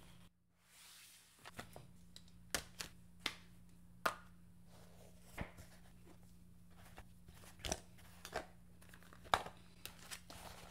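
Gloved hands packing small lipstick tubes and boxes into a fabric makeup pouch: an irregular string of sharp taps and clicks with soft handling noise, the loudest about four seconds in and about nine seconds in.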